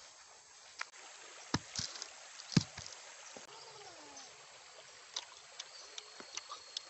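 A few sharp thumps in the first three seconds, the loudest about two and a half seconds in, then a run of small clicks and smacks from a man biting into and chewing a whole grilled chicken, over a steady faint hiss.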